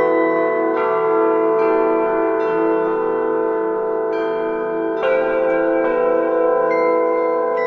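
Bronze bells ringing: fresh strikes come every one to two seconds and overlap, each tone ringing on long after it is struck, over a slow wavering hum in the low notes.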